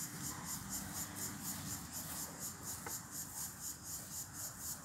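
Insects chirping in a fast, even, high pulse, about six or seven pulses a second, with no break.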